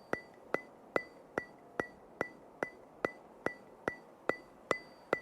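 Steady, evenly spaced ticks, about two and a half a second, each a sharp click with a brief high ring.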